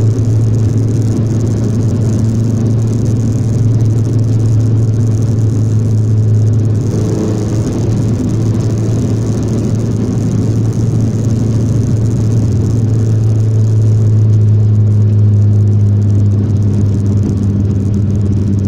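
Turbocharged Volkswagen Voyage engine heard from inside the cabin while cruising, a steady low drone at even revs with road rumble under it.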